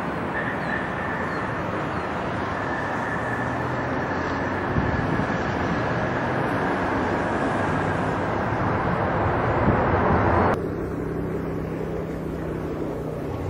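Engines of a three-engined wide-body jet airliner running loudly as it touches down and rolls out on the runway; the noise grows a little louder, then cuts off abruptly about ten and a half seconds in. After the cut, an Airbus A380 on approach gives a quieter, steady engine drone with a low hum.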